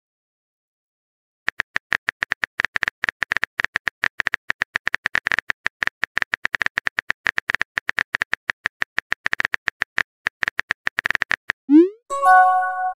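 Simulated phone keyboard typing from a texting-story app: a rapid, even run of tap clicks, several a second, for about ten seconds. Near the end a short upward swoop and a chime: the message-sent sound.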